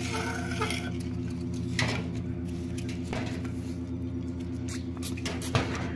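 A steady low hum, with a few short scrapes and knocks as a turtle's shell is handled and shifted on a concrete floor.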